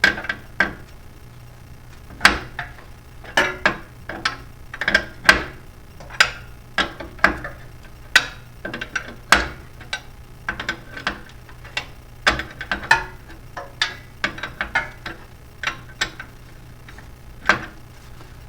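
Hand tools at work: irregular sharp metallic clicks and clacks, one every half second to a second, over a steady low hum.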